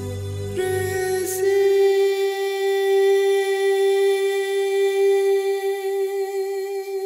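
Background music: one long held note, with a low drone underneath that drops away in the first two seconds.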